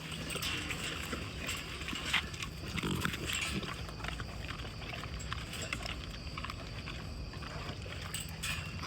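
Cane corso puppy eating a raw meal: irregular chewing, smacking and crunching clicks.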